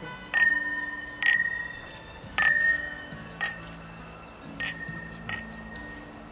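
Champagne flutes clinking together in a toast: six clinks spread over about five seconds, each ringing briefly.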